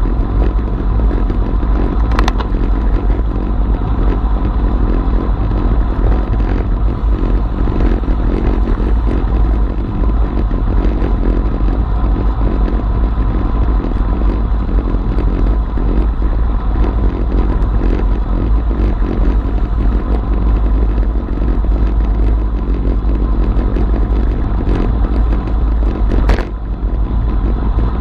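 Steady, heavy wind rush on a bicycle-mounted action camera's microphone at about 45 km/h, with tyre and road noise underneath. Two sharp clicks, about two seconds in and near the end.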